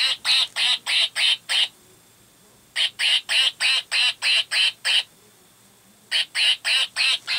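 Plush duck baby toy quacking: three runs of rapid, evenly spaced quacks, about three a second, with a pause of about a second between runs.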